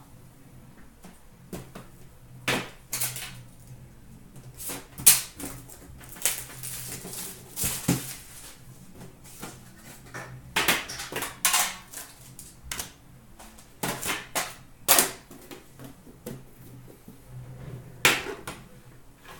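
Hands handling trading card packs and a metal card tin: irregular clicks, knocks and crinkly rustles as the tin is opened and foil packs are lifted out and set down in a stack on a glass counter.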